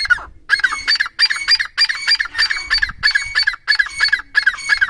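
Grey francolin calling: a loud, rhythmic series of shrill repeated notes, about three a second.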